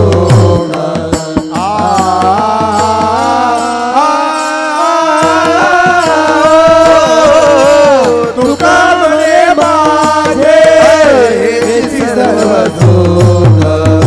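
Marathi devotional kirtan music: a sustained, gently bending melody over a steady drone, with rhythmic hand-drum strokes coming back in near the end.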